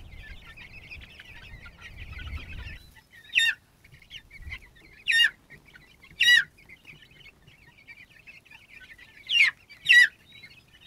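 A flock of young chickens peeping and chirping. Five loud single calls that slide down in pitch stand out, the last two close together near the end.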